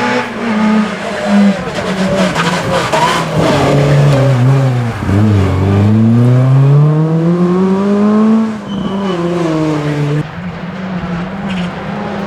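Rally car engine running hard: the revs fall to a low point about five seconds in, climb steadily for about three seconds, then drop at a gear change and hold.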